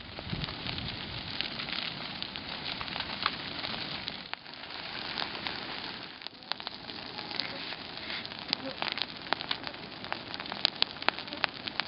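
Grass fire burning: a steady hiss with many sharp crackling pops, the pops coming thicker and louder in the last few seconds.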